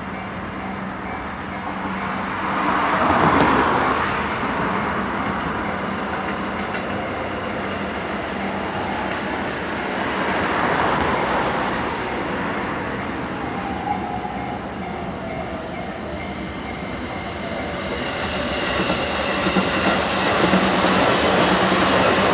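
Electric trains running past over the level crossing, a rush of wheel and track noise that swells a few seconds in, again about halfway, and builds louder near the end.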